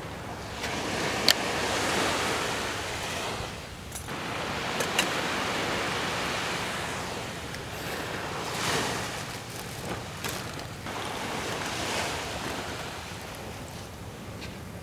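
Sea waves washing onto a sandy beach, swelling and fading every few seconds, with a few sharp clicks, the loudest about a second in.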